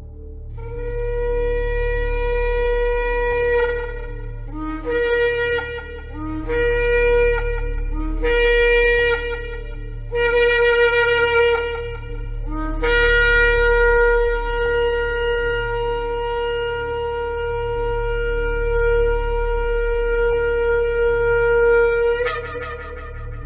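Ram's-horn shofar blown in a long blast, then four shorter blasts that each break upward from a lower note, then one very long held blast that jumps higher in pitch just before it stops.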